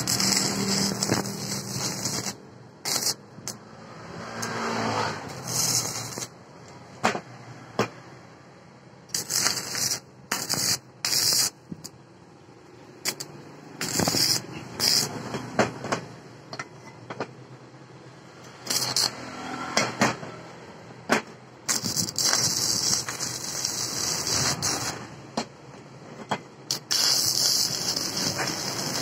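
Stick (MMA) arc welding on steel, the arc crackling and sizzling in a string of separate bursts, some short tacks and some runs of a second or two, each starting and cutting off sharply.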